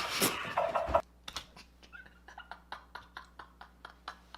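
A sharp knock just after the start of a short louder stretch, then faint irregular clicks, four or five a second, over a low steady hum.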